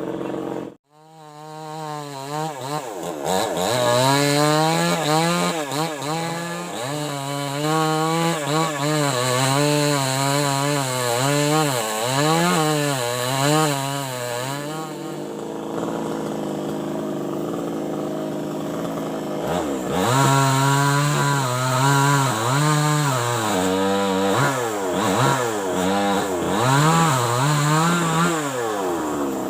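New West 588 two-stroke chainsaw running, its engine pitch rising and falling over and over as the throttle is worked, with a steadier stretch about halfway through.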